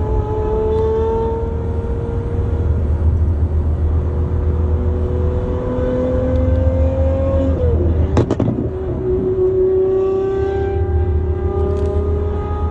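Lamborghini Aventador's V12 engine pulling under acceleration, its pitch climbing slowly, then dropping sharply at a gear change about seven and a half seconds in, with a short burst of pops at the shift, before climbing again.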